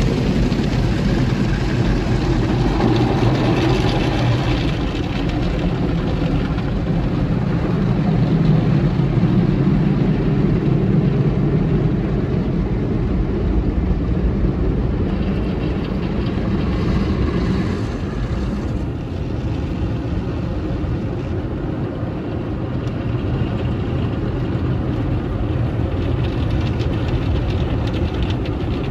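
Automatic car wash water jets and brushes beating on the car's body and windshield, heard from inside the cabin as a steady rushing rumble that eases a little past the middle.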